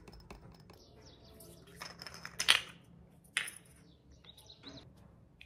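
Plastic skincare bottles and their cardboard box being handled: a few short clicks and knocks with some rustling. The loudest knock comes about two and a half seconds in and another about a second later.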